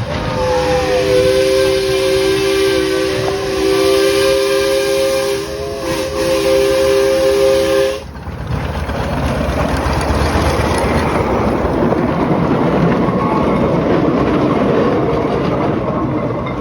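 Miniature steam locomotive's chime whistle blowing a three-note chord, a long blast and then a shorter one after a brief break. When the whistle stops about eight seconds in, the train's running noise follows.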